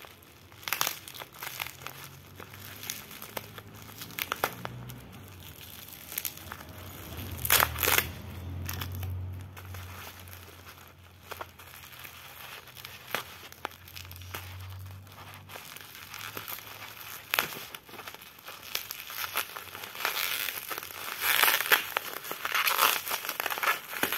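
Black plastic parcel wrapping and bubble wrap crinkling and crackling as they are unwrapped by hand, in irregular bursts. The rustling is busiest near the end, with a loud burst about eight seconds in.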